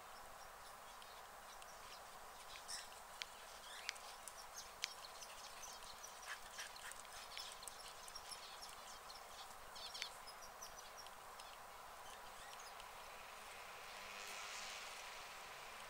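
Lionhead rabbit cropping and chewing grass: faint, irregular crisp snips and clicks, thickest through the middle, over a steady outdoor hiss. A soft rush of noise swells briefly near the end.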